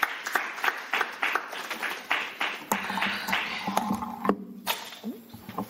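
A small group of people applauding, separate hand claps at an uneven rate that die away about four and a half seconds in.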